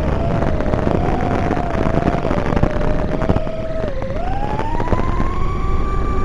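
FPV mini quadcopter's brushless motors whining in flight over heavy wind rush. The whine holds a steady pitch, dips briefly about four seconds in, then glides steadily higher.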